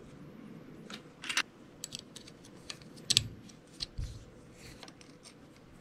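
Light, irregular clicks and taps of small parts being handled and fitted into a VSR-10 airsoft rifle's metal hop-up chamber, with a few sharper ones around the middle.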